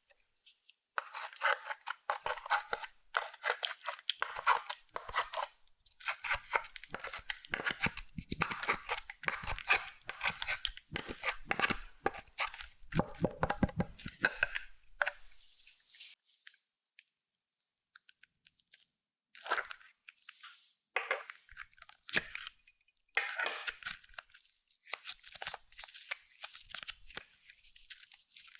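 Hands kneading and stretching clear slime with makeup and glitter mixed in, giving rapid sticky crackling and popping. It stops for about three seconds just past the middle, then starts again.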